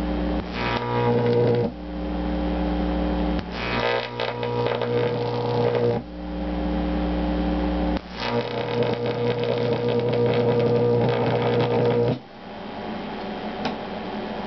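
Microwave oven transformer with resonant high-voltage capacitors humming loudly at mains frequency, breaking into a harsher electric buzz each time a high-voltage arc is drawn: three arcs, the last lasting about four seconds. The hum and arc cut off sharply about twelve seconds in as the power is switched off.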